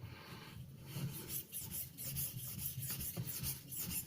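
The flat back of a serrated knife's steel blade is drawn lightly across an oiled black Arkansas stone in a series of even strokes, about two a second. The strokes remove the burr raised by sharpening the serrations.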